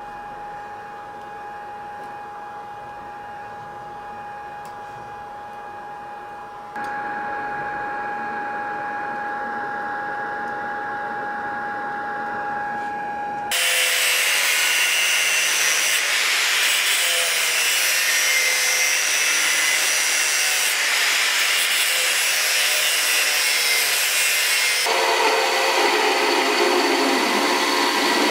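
A steady hum with a thin whine, louder after about seven seconds. Halfway through, an angle grinder's cutting disc starts cutting steel held in a vise, much louder. Near the end it gives way to a belt grinder grinding metal.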